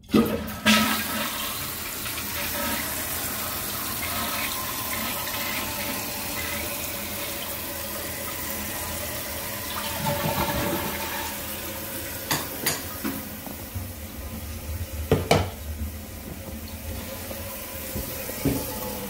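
Toilet tank filling through a newly installed fill valve: water starts suddenly and rushes steadily, with a faint hiss from the valve. A few sharp clicks come in the second half.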